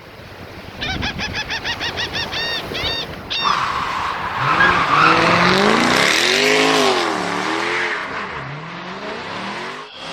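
A motor vehicle engine revving, its pitch rising and falling several times, after a quick run of short high squeaks about four a second.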